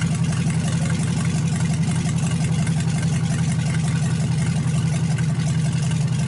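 Engine of a 1931 Ford hot rod idling steadily through open headers with no mufflers, a loud, even, low running note.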